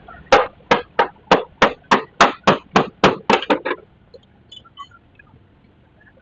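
A rapid series of about a dozen sharp knocks, like hammer blows, about three a second, stopping abruptly a little before four seconds in; a few faint small sounds follow.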